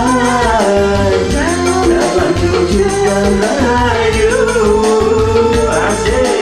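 Singing over a karaoke backing track with a steady percussion beat.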